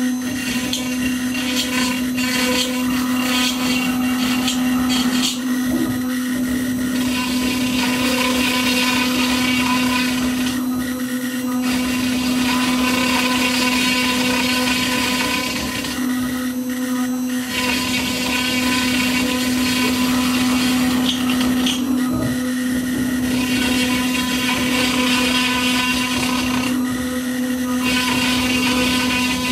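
Water-cooled spindle of an Onefinity Elite Foreman CNC router running with a steady hum while its bit cuts wood, the hiss of cutting coming and going in stretches of several seconds with short breaks between. The spindle's slight extra noise is, by the owner's account, cold grease that still needs working around, not a spindle going bad.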